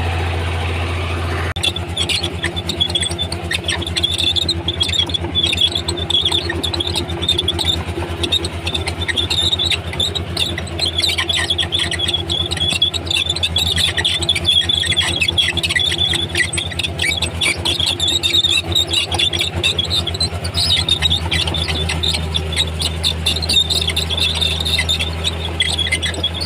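Komatsu D31P crawler bulldozer at work: a steady diesel engine drone under high, irregular squealing and squeaking from its steel tracks, which sets in about a second and a half in.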